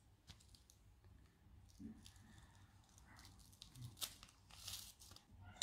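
Faint crinkling and rustling of a small powder sachet being shaken out over a glass bowl, with soft scattered crackles and a louder crackly stretch about four seconds in.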